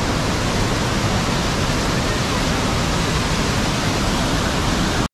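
Hogenakkal waterfall on the Kaveri river: a loud, steady, even rush of falling water.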